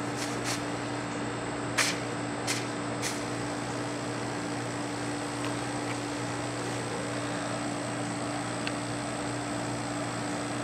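Small Matsushita hermetic refrigerator-type compressor running with a steady electric hum. There are a few sharp clicks in the first three seconds.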